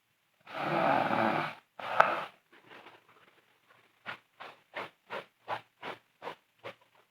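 A sleeping woman snoring loudly. One long snore comes about half a second in, then a shorter one with a sharp click near two seconds. From about four seconds in there is a quick run of short breaths, about three a second.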